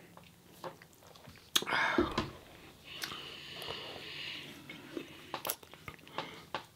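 Close-miked mouth noises of drinking and eating: swallows, wet lip smacks and small clicks, with one louder noisy sound about two seconds in and a soft, breathy hiss a second later.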